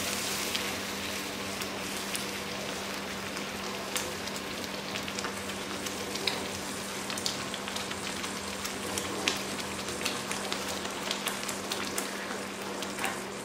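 Sooji halwa sizzling in a non-stick pan as the added water cooks off, stirred with a wooden spatula that gives scattered light taps and scrapes against the pan.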